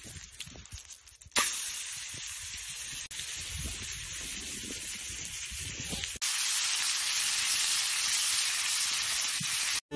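Steak frying in a hot black pan over campfire embers: a faint crackle at first, then a loud sizzle starts suddenly about a second and a half in as the meat meets the hot fat, and it sizzles steadily. The sizzle gets louder about six seconds in and stops just before the end.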